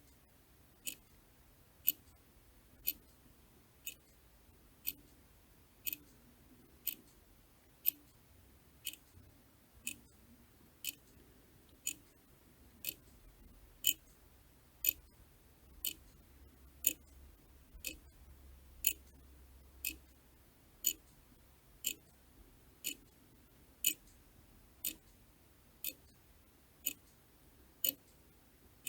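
A clock ticking steadily: one sharp tick about every second.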